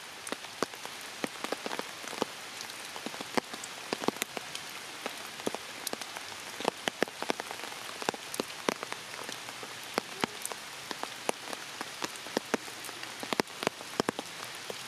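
Steady rain with a constant hiss and frequent sharp, irregular drop hits close by.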